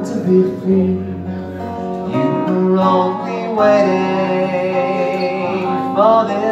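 A man singing while playing an acoustic guitar: chords under a sung melody.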